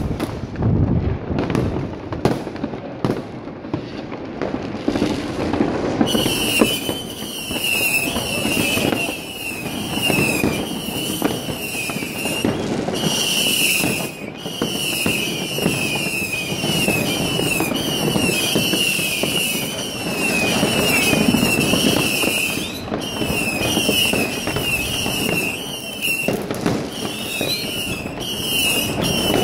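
Dense fireworks and firecrackers going off on all sides, a continuous mix of crackling and bangs. From about six seconds in, a high falling whistle repeats about twice a second over the crackle.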